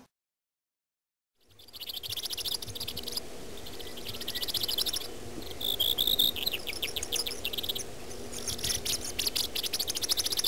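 Silence for about a second and a half, then rapid, high-pitched chirping trills that keep repeating, over a faint low steady hum.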